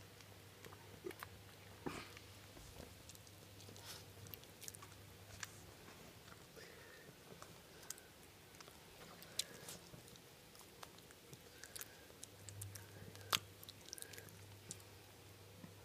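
Small dog chewing and licking a mouthful of sticky peanut butter: faint, irregular wet smacks and clicks of its tongue and jaws.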